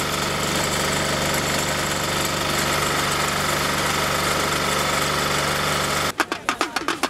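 A steady mechanical drone with a low hum, cutting off suddenly about six seconds in. A fast, even rhythmic beat of music takes over near the end.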